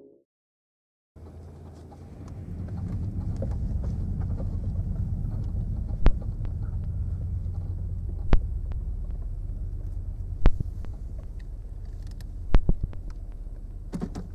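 Car engine and road noise heard from inside the cabin while driving: a steady low rumble that starts about a second in and builds as the car gets going. A few sharp knocks stand out over it, roughly every two seconds.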